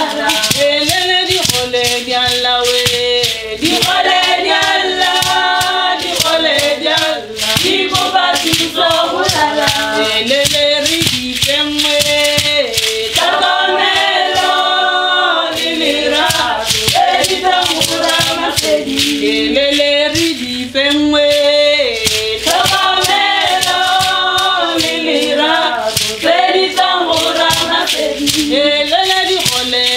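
A group of women singing a Setswana traditional song together, over the steady rhythmic rattling of leg rattles worn on the dancers' ankles.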